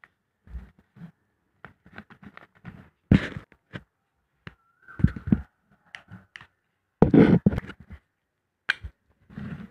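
White paper crinkling and rustling as it is folded and pressed into a small packet, in irregular bursts. Three louder bumps come about three, five and seven seconds in.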